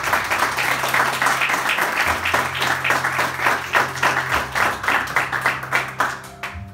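A small group of people applauding, with many overlapping hand claps that die away near the end.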